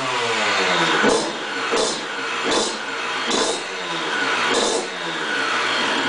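Derbi Senda two-stroke engine, built up with an 80 cc MHR cylinder kit, PWK24 carburettor and Yasuni Cross expansion pipe, running just after a kick-start. The throttle is blipped over and over, the revs jumping and falling back about once a second. It is one of the first runs on the new setup.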